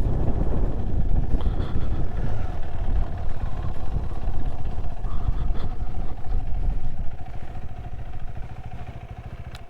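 A vehicle driving on an unsealed road: a steady low rumble with a held engine drone, dying down over the last couple of seconds.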